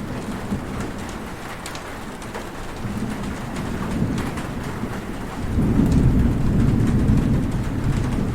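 Heavy rain falling steadily with scattered drop ticks. A low rumble of thunder builds, swelling loudest from about five and a half seconds in.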